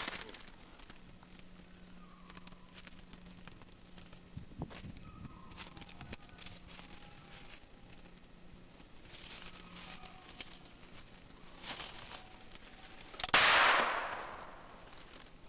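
Rustling steps through brush in short bursts, then near the end a single loud gunshot that dies away over about a second.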